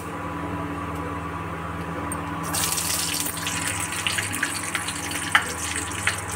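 Hot oil in a kadai starts sizzling and crackling suddenly about two and a half seconds in, as whole green chillies drop into the cumin and asafoetida tempering. Before that there is only a steady hum from the induction cooktop.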